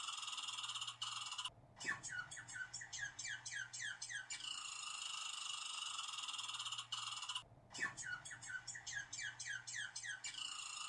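Squirrel chattering: a steady buzzy rattle alternating with quick runs of short, falling chirps, each run after a brief pause. The sequence repeats about every six seconds.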